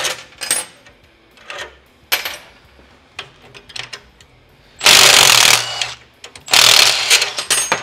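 Cordless impact wrench hammering in two bursts of about a second each, about five and six and a half seconds in, as it spins off the nuts on the leaf spring's clip bolts. A few short metal clicks come before them.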